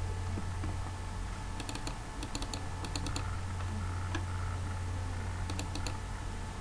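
Computer clicks in small clusters of two to four, about every second or so, over a steady low electrical hum.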